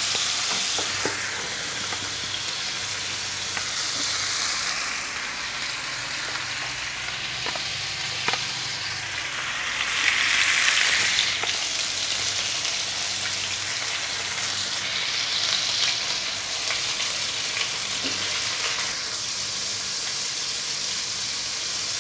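Chicken pieces sizzling in hot oil in a carbon-steel wok as they brown, stirred now and then with a wooden spoon that scrapes and knocks lightly against the pan. The sizzle swells briefly about halfway through.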